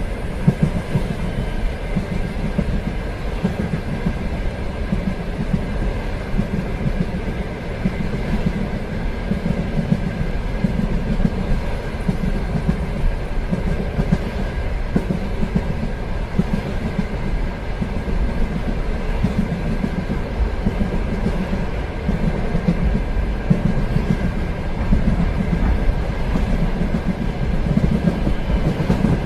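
Train running steadily on rails: a constant low rumble of the wheels on the track with occasional light clicks and a faint steady whine.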